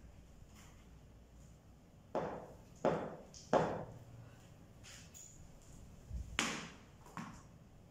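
Sharp knocks of a ball against a wooden cricket bat and a hard tiled floor during batting practice, ringing in the bare room. Three come in quick succession about two seconds in, then a louder one and a fainter one later.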